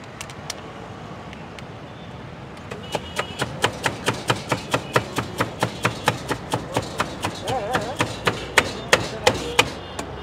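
Steel tumbler mashing boiled-potato panipuri filling in a steel pot, clanking against the pot with a metallic ring about three times a second. The strokes start a few seconds in and are loudest near the end.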